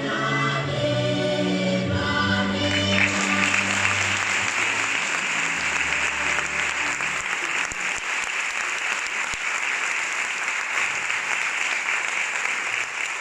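Choral music with a low held note, from the end of a projected video, fades out after the first few seconds. An audience bursts into steady applause about three seconds in and keeps clapping.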